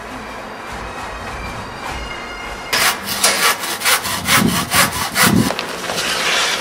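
Handsaw cutting through a wooden batten, a quick run of rasping strokes, about four a second, starting about three seconds in and stopping about two and a half seconds later. Background music plays underneath.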